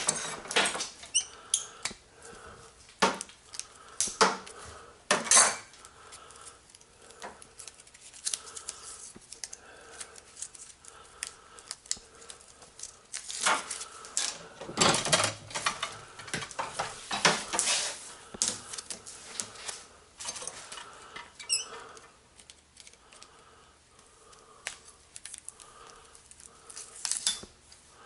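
BX armoured cable being stripped by hand at a bench vise: the spiral metal armour clinks and rattles against the vise and cutters in irregular metallic clacks as it is cut and twisted off the copper wires.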